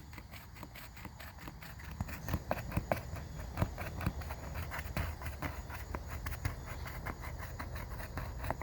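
Raccoon chewing hard food, with irregular small crunching clicks starting about two seconds in. A steady chorus of night insects runs underneath.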